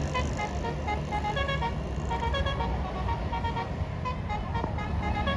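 Bus musical air horn (basuri, the 'telolet' horn) playing a quick tune of short notes at several pitches, over the steady low rumble of a bus engine running.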